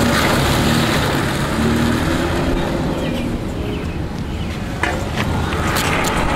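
A car being driven slowly in a circle, its engine and tyres making a steady low rumble. A few sharp knocks come near the end.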